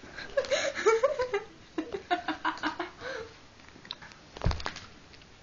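Laughter and giggling with some indistinct voices, including a quick run of short ha-ha pulses about two seconds in, and a single dull thump near the end.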